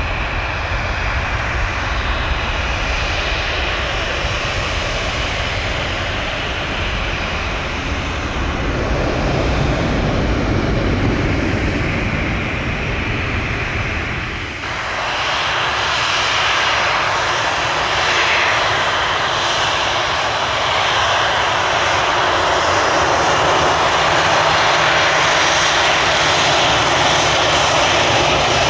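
Jet airliner engines heard close by as steady, loud noise with a deep rumble. About halfway through the sound changes abruptly, the rumble dropping away and a brighter hiss taking over.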